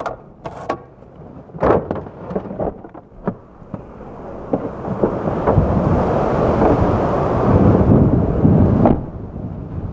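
Clicks and knocks of a car door being unlatched and opened and the camera being handled, then a loud rumbling rush of wind on the microphone for about five seconds that cuts off suddenly.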